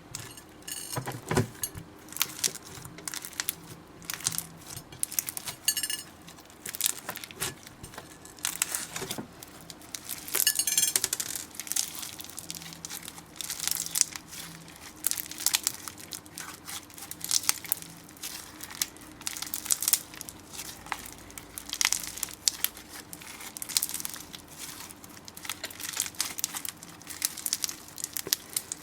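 Slime being squeezed and worked by hand, with a dense run of irregular sticky clicks, pops and crackles as air pockets burst.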